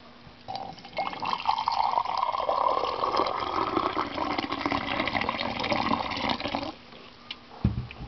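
Hot liquid poured into a color-changing mug: a steady pour starting about half a second in and stopping sharply near the end. A single low thump follows just before the end.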